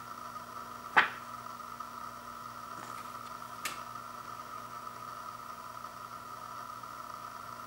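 Handling of a Blu-ray case and its glossy paper insert card: one sharp snap about a second in as the card is turned over, and a faint tick a few seconds later, over a steady background hum.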